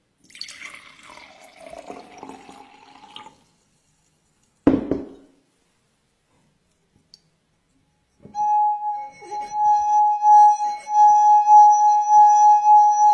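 A drinking glass singing a loud, steady ringing tone with a slight waver in loudness, in the way a glass rim rubbed with a wet finger sings; this tone starts about eight seconds in. Before it there are about three seconds of soft liquid and glass noise, then a single sharp knock.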